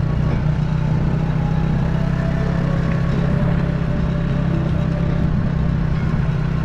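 Steady low engine and road rumble of a moving vehicle, running evenly with no distinct events.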